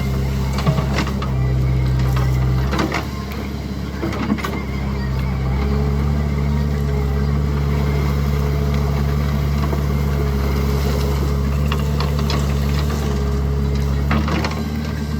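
Diesel engine of heavy machinery running steadily. Its pitch drops about three seconds in and rises again a few seconds later as the load changes. A few sharp knocks come through, around the first second, at three and four seconds, and near the end.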